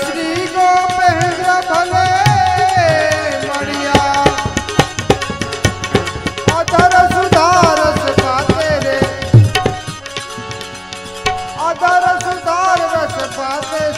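Devotional bhajan sung live: a solo voice in three long, wavering phrases with short breaks between them, over a rapid tabla beat and a steady sustained accompaniment.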